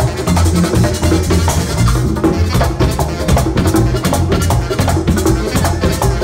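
Live Latin dance band playing: congas and a metal güira scraping a steady rhythm, with alto saxophone and electric bass guitar.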